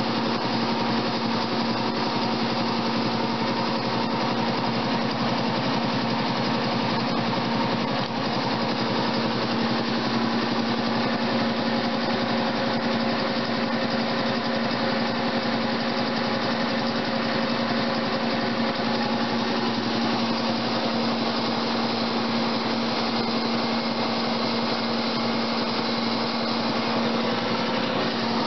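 1953 Ingersoll-Rand 10T two-stage, three-cylinder air compressor, belt-driven by a 15 HP single-phase electric motor, running steadily at full speed as it pumps air into its tank. It makes a loud, even mechanical drone with a strong low hum.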